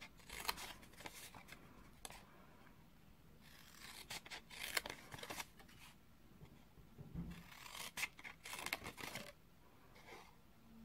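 Small scissors snipping through cardstock in several short runs of cuts with pauses between, cutting slits up to the score lines.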